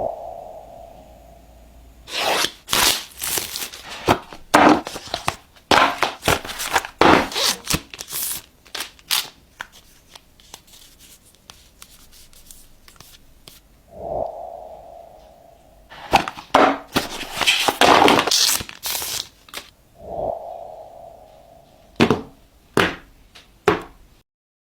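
Handling and opening smartphone retail boxes: bursts of plastic wrap tearing and crinkling, with cardboard rubbing and scraping and the odd thunk, between quieter pauses.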